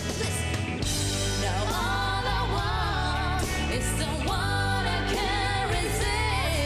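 A woman singing a pop song into a handheld microphone with vibrato, over musical accompaniment; a heavy bass and beat come in about a second in.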